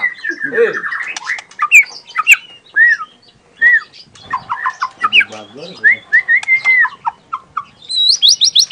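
Young white-rumped shama (murai batu) singing a varied, stop-start song of clear whistles, clicks and short chirps. About eight seconds in it breaks into a fast run of repeated rising whistles.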